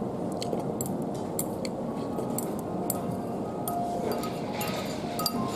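Chopsticks clinking against a ceramic bowl, a few sharp light taps a second, over a steady background din.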